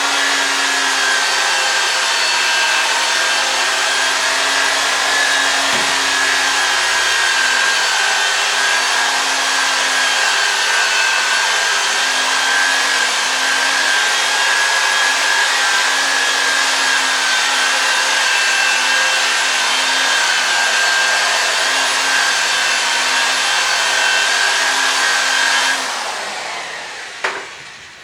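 A small electric motor, such as a power tool's, runs at a steady speed, then is switched off about 26 seconds in and winds down.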